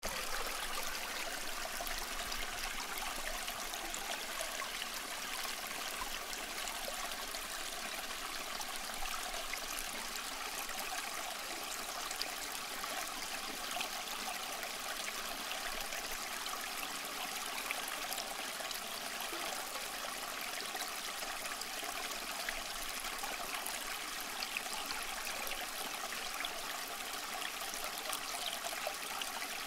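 Steady running water, like a trickling stream, even and unbroken throughout.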